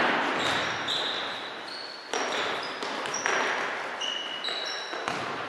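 Futsal ball kicked and bouncing on a wooden gym floor: three sharp thuds with a hall echo. Between them come many short, high-pitched squeaks of sports shoes on the parquet.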